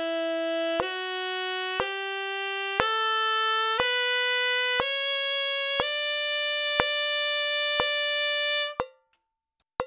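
Tenor saxophone playing an ascending E major scale (written pitch) in slow, even notes, one per second, rising to a high palm-key E held for about three seconds before it stops. A metronome clicks once per beat throughout.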